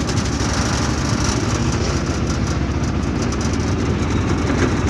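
Moving two-wheeler's engine running steadily, with road noise and wind rumble on the microphone.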